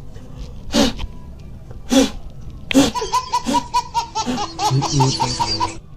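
A person laughing: three short loud bursts about a second apart, then a quick run of high-pitched laughs from about three seconds in, stopping just before the end.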